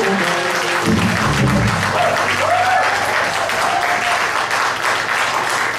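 A rock band's last chord and final low hits die away in the first couple of seconds as the audience applauds and cheers.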